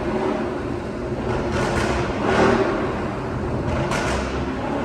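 Straight-piped (muffler-deleted) Dodge Charger SRT Hellcat's supercharged V8 exhaust rumbling steadily at low speed inside a road tunnel, heard from the cabin with the windows down, with a few short sharp bursts of noise.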